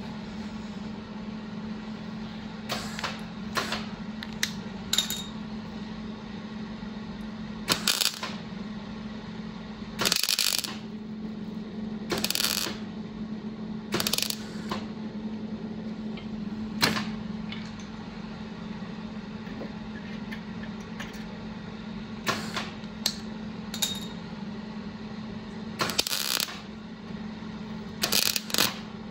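Irregular metallic clicks and short crackling bursts, some lasting up to about a second, over a steady low hum, from metalwork on a car body.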